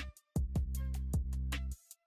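Background music with a beat: drum hits over a sustained bass line, dropping out briefly twice.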